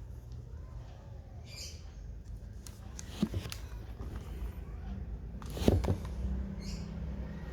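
Handling noise of a 1/64 diecast model car and its packaging: a few small clicks and taps, the loudest near the end, over a steady low hum.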